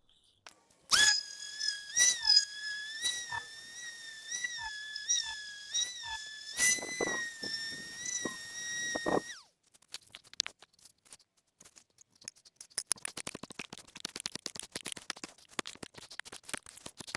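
A steady high whine with a knock about every half second runs for roughly nine seconds and then cuts off. After that come rapid, dense scraping strokes as a wooden sledgehammer handle is whittled to fit the head.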